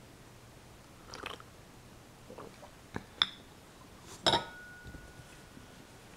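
Porcelain teacup being set back down on its porcelain saucer: a couple of light, sharp clinks around three seconds in, then a louder clink a little after four seconds that leaves a clear ringing tone for nearly two seconds.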